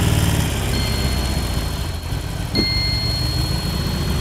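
Harley-Davidson motorcycle's V-twin engine running at low revs with a deep, pulsing beat, loudest for the first half-second and then settling a little softer.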